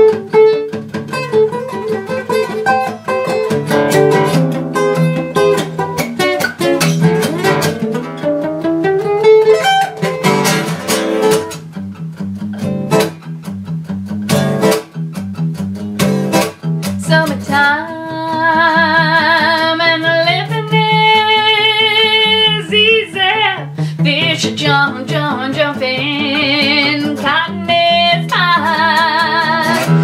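Acoustic guitar played alone with picked notes and chords, including a rising run. From about 18 seconds a woman's singing voice comes in over the guitar with long, wavering held notes.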